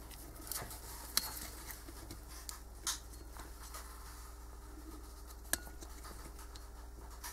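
A few light clicks and taps as a digital caliper is handled and set against a steel camshaft lobe, over a steady low hum.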